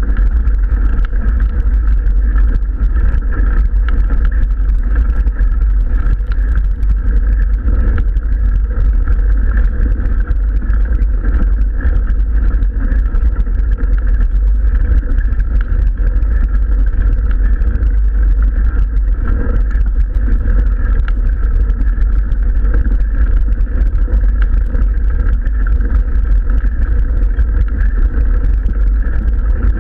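Steady, loud low rumble of wind buffeting an action camera's microphone, mixed with a mountain bike's tyres rolling on a gravel road.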